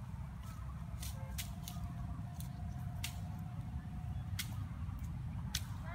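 Low, steady wind rumble on the microphone, with a scatter of sharp dry clicks and snaps from twigs and brush.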